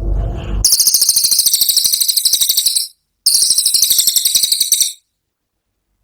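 A cililin bird singing its 'tembakan' song: two very high, rapid rattling trills of about two seconds each, with a short break between them. Before the first trill there is a brief low rumble.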